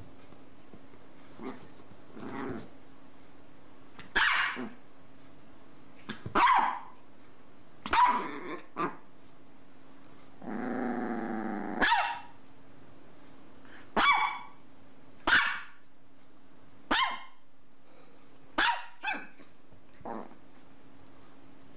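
A Chihuahua barking in short, high yaps, about a dozen of them a second or two apart, with a longer growl running into a bark about eleven seconds in.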